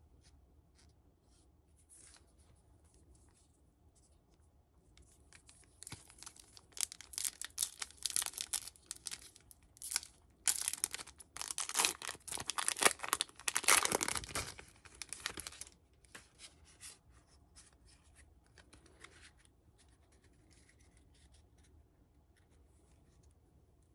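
Foil Pokémon booster pack wrapper crinkling and tearing open by hand. The crinkling is loudest for about ten seconds in the middle, with faint clicks of cards being handled before and after.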